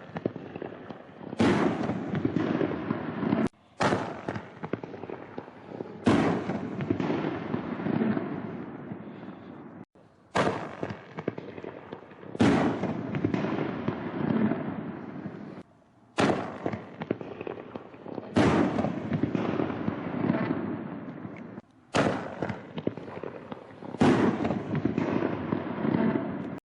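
60-gram canister artillery shells bursting one after another, about ten loud sharp bangs each trailing off in a noisy rumbling tail over a second or two. Several bursts are cut off abruptly before the next begins.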